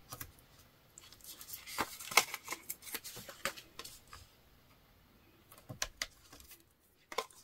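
Paper and card stock being handled: light rustles and small taps and clicks as a paper strip is stuck down on foam adhesive spacers and pressed onto a card, busiest over the first few seconds and then a few single taps near the end.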